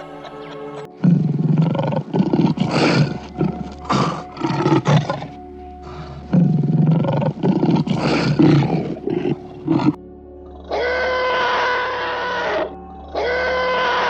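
A large wild animal roaring in two rough bouts of several seconds each, then two long, steady held calls, over background music.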